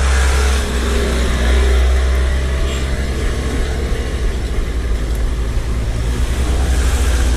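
Wind buffeting on an action camera's microphone during a bike ride: a loud, steady low rumble with a hiss over it.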